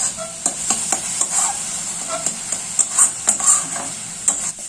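Metal spatula stirring and scraping thick grated-carrot halwa around a metal kadai, with irregular scrapes and knocks against the pan over a steady sizzle, as the halwa is cooked down to dry off its moisture.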